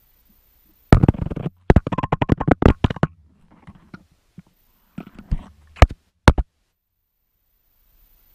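A loud knock and low rumble, then a rapid rattle of sharp knocks for about a second and a half, followed by a few more single sharp knocks.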